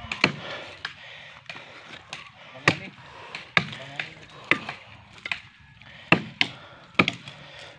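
A bolo chopping into the trunk of a small standing tree near its base: about a dozen sharp wooden chops at an uneven pace, some close together in pairs.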